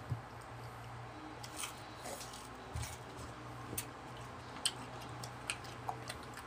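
Faint, scattered clicks and smacks of mouths chewing fresh, crisp mango and fingers handling the wet slices, over the steady hum of an electric fan.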